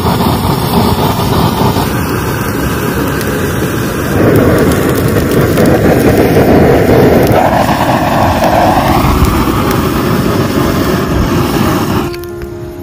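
Butane gas torch jetting its flame into a pile of dry leaves and twigs: a loud, steady hissing rush, with the dry brush crackling as it catches. The sound gets louder about four seconds in and drops away sharply near the end.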